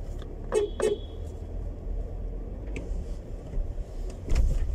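Low steady rumble of a 2016 Nissan X-Trail heard from inside the cabin as it is driven slowly, with a few short clicks and knocks, the loudest a low thump near the end.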